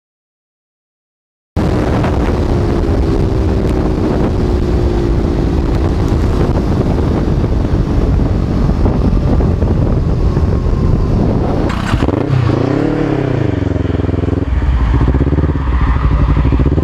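About a second and a half of silence, then a KTM RC390's single-cylinder engine running at top speed in sixth gear under heavy wind rush, its note sagging slightly. About twelve seconds in it changes to a Kawasaki Ninja 400's parallel-twin engine at low speed, its pitch rising and falling with the throttle.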